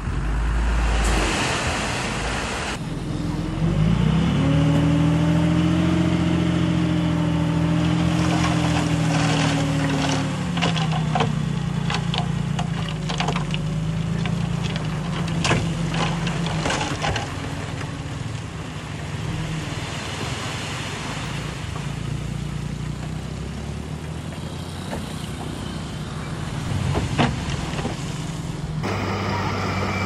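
Heavy diesel engine of earthmoving machinery running. Its pitch rises about four seconds in and then holds steady, with scattered knocks and clanks.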